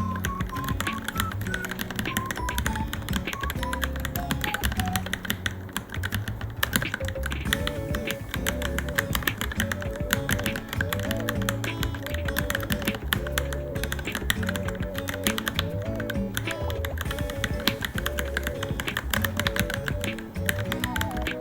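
Fast, continuous typing on a Varmilo Minilo mechanical keyboard, a quick unbroken run of key clicks, over background music with a repeating melody.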